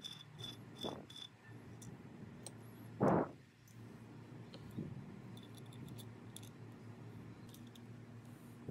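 Hands handling the metal motor housing and parts of a vintage electric drill: light knocks and clicks, the loudest about three seconds in, over a low steady hum. A quick run of high chirps, about three a second, sounds in the first second or so.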